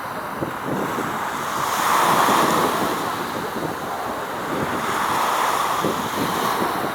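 Wind buffeting the microphone: a rushing noise with no clear pitch that swells about two seconds in and again around five seconds.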